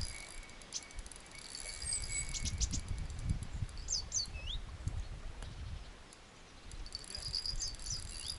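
Small birds chirping outdoors, with short high sweeping calls about four seconds in and again near the end, and a thin high trill early on. Gusts of wind rumble on the microphone underneath.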